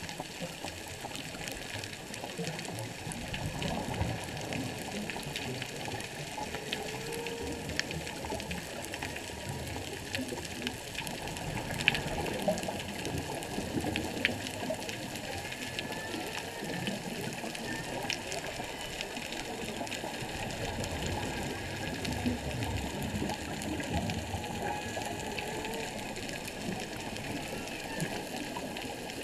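Humpback whale song heard underwater: a few faint short calls that bend in pitch, over a steady underwater hiss with scattered crackling clicks.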